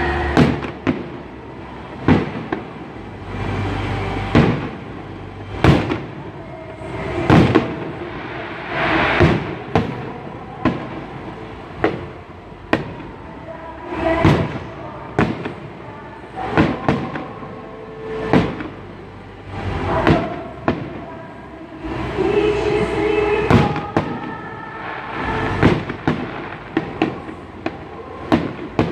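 Aerial firework shells bursting in a display: a sharp bang every second or two, each trailing off in a rumbling echo.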